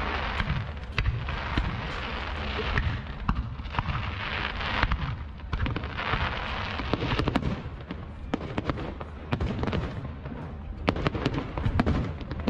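Aerial fireworks going off: a dense mix of crackling and many sharp bangs, the bangs coming thicker near the end.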